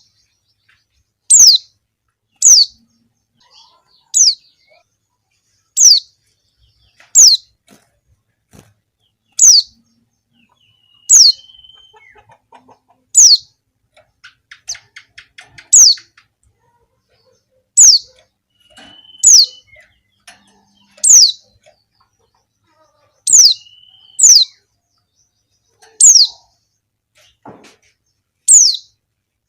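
Female white-eye (pleci) giving short, high calls that each sweep downward in pitch, repeated about every one to two seconds, some sixteen times. This is a female's call, used as a lure to stir other white-eyes into calling.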